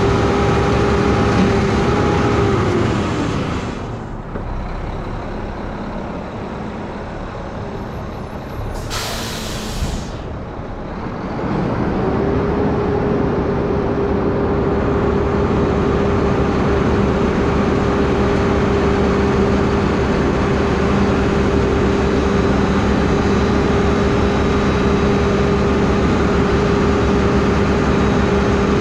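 Front-loader garbage truck running with a steady droning tone. The drone drops away about three seconds in, an air brake hisses briefly near ten seconds, and the steady drone comes back about twelve seconds in and holds.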